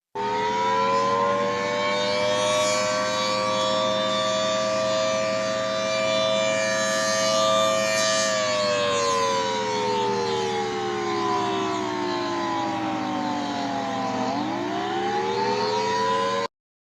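Emergency warning siren sounding a chord of several tones. It comes in suddenly and holds steady for about eight seconds, then slowly falls in pitch, swoops back up near the end and cuts off sharply. A steady low hum runs underneath.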